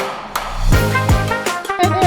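Background music with horns and a steady beat, a new phrase starting about half a second in.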